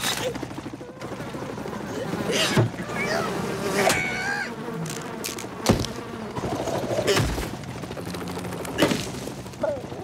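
Cartoon sound effects: a fly buzzing steadily, broken by several sharp whooshes and hits, with short squawking cartoon-bird cries in the middle.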